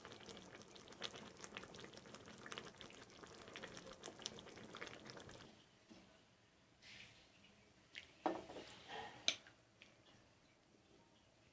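Fish curry simmering in a metal pan, a faint dense crackle of bubbles for the first five seconds or so. It then goes quieter, with a few sharp clinks of utensils near the end.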